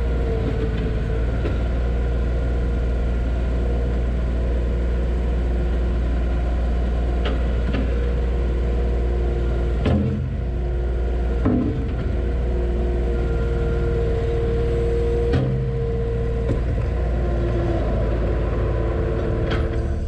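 Skid-steer loader's diesel engine running steadily, heard from inside the cab, with a whine that starts and stops as the arms and bucket are worked. A few sharp knocks come about ten, eleven and a half and fifteen seconds in.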